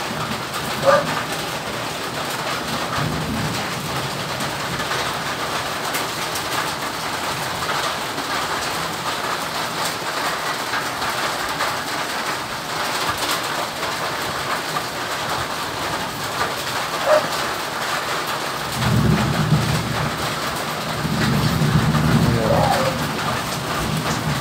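Steady hiss like rain, with low cooing twice near the end.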